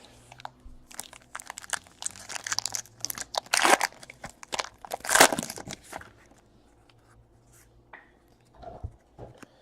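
Plastic wrapping on a pack of football trading cards being torn open and crinkled in bursts of crackling for about five seconds, then stopping.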